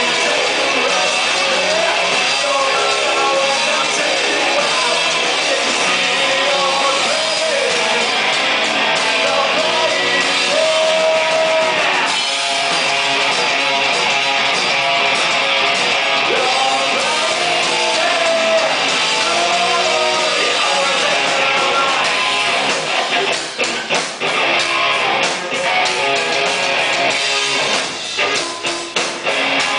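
Live rock band playing loud: electric guitars, bass and drums with a sung vocal line. From about two-thirds of the way in, the sound breaks into short separate hits with brief dips between them.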